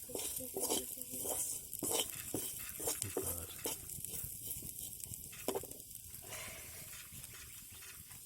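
Food sizzling in a cooking pan while being stirred, with irregular scrapes and knocks of the spoon against the pan. The stirring stops about six seconds in, leaving a quieter sizzle.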